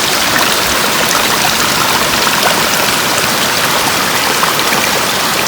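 Mountain stream running down the mountainside: a steady rush of water with small splashes throughout.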